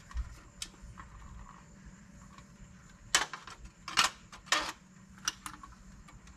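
Clinks, knocks and short scrapes of sheet-metal Lionel Standard Gauge toy passenger cars being handled and set down, about five separate noises with the loudest about three and four seconds in.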